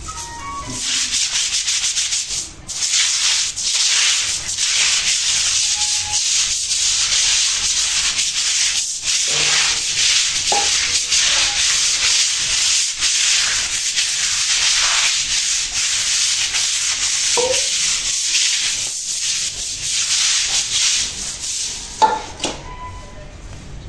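A stiff stick broom scrubbing a wet concrete floor with detergent water: a steady hiss of quick, repeated rubbing strokes. Near the end the scrubbing stops and a single sharp knock is heard.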